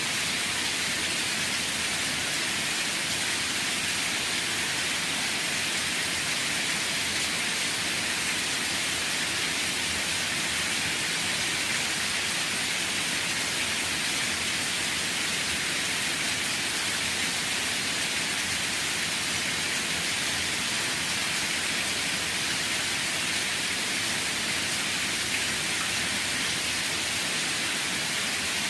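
Steady rain falling, an even hiss of drops with no thunder or single drops standing out.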